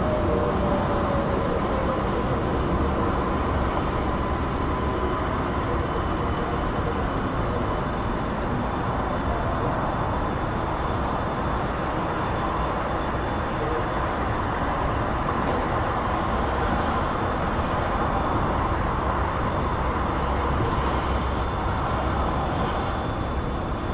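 Continuous traffic noise from a distant busy motorway: a steady rush of tyres and engines. A pitch slides downward in the first couple of seconds.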